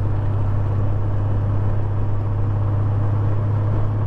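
Honda Gold Wing motorcycle cruising at a steady speed: an even, unchanging low engine drone mixed with wind and road noise.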